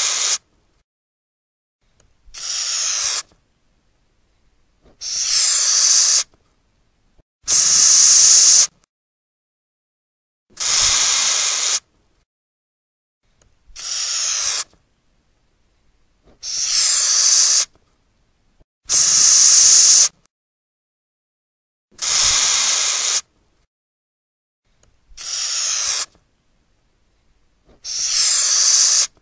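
Madagascar hissing cockroach hissing by forcing air out through its breathing pores, about ten separate hisses each lasting about a second, spaced every two to three seconds with silence between. The hiss is high and airy, and several swell in loudness at the start.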